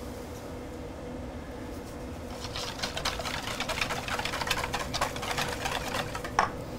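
Wire whisk beating heavy cream in a stainless steel bowl: a rapid run of light metallic clicks and swishes starting about two seconds in, over a faint steady hum.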